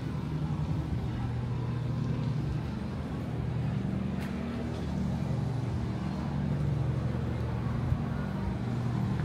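A motor running with a steady low hum, its pitch shifting slightly a few times.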